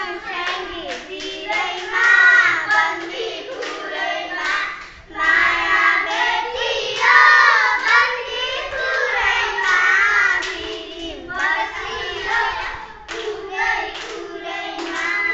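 Several children singing together, with many hand claps mixed in.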